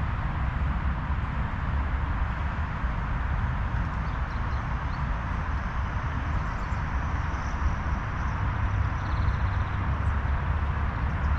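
Outdoor wind rushing steadily, with a fluttering low rumble of wind on the microphone. A few faint, short bird chirps come through high above it.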